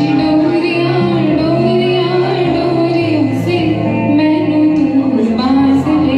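A female vocalist sings a smoothly gliding melody over instrumental accompaniment of held bass notes and sustained chords.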